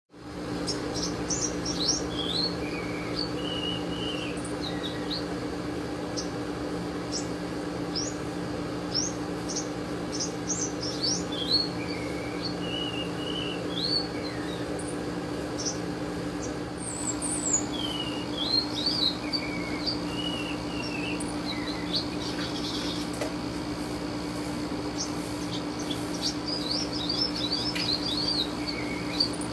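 Songbird calling in a long run of short chirps and quick whistled phrases, some sliding up or down in pitch, repeated with short gaps, over a steady low hum. The bird is a sogon, as Indonesian bird-keepers call it.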